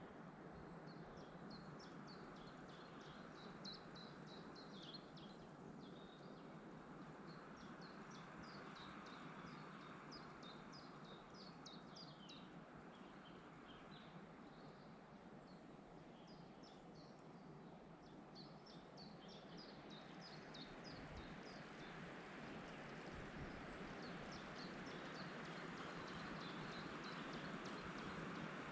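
Forest birds singing in several phrases of quick, high chirping notes, a few seconds each, over a faint steady rush of wind that grows a little louder near the end.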